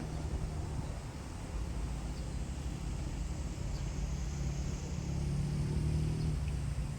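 Diesel railcar engine running with a steady low drone that grows louder about five seconds in, then eases slightly near the end.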